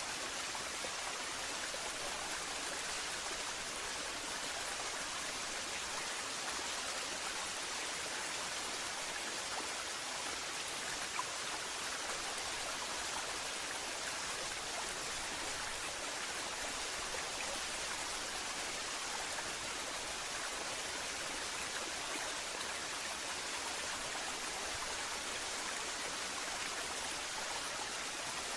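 Waterfall rushing in a steady, even hiss of falling water, with one brief faint tick about eleven seconds in.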